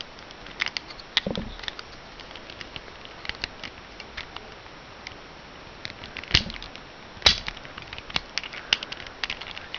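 Plastic Rubik's cube pieces clicking and clacking as they are handled and slotted back into the cube by hand: a scatter of small clicks, with a louder knock just over a second in and two more around six and seven seconds in.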